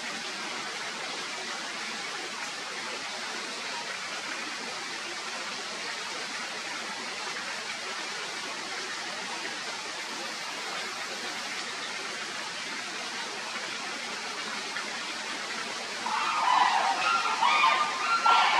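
Steady, even rushing noise of outdoor ambience. Louder voices of people talking come in near the end.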